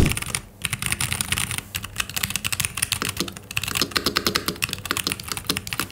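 Fast typing on an ASUS ROG Azoth gasket-mounted mechanical keyboard fitted with hot-swapped aftermarket switches: a rapid, continuous stream of key clacks.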